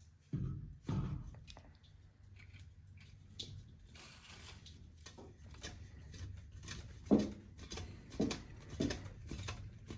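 Scattered knocks and clanks of hand tools and metal fittings being handled during work on boiler piping, over a steady low hum.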